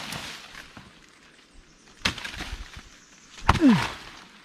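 Machete chopping into a green banana stalk: a lighter chop about two seconds in, then a louder one about a second and a half later.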